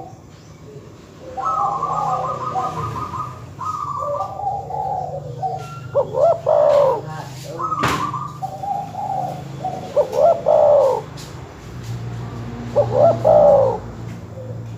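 Doves cooing in overlapping phrases: a fast stuttering run of notes, then loud arching coos repeated about every three to four seconds. A single sharp click comes about eight seconds in.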